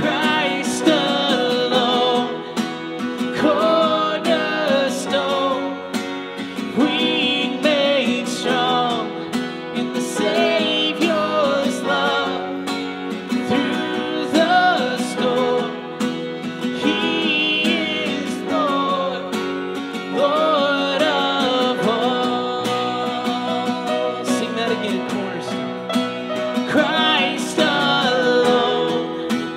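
A worship song performed live: a man singing over a strummed acoustic guitar, with a stage keyboard playing along.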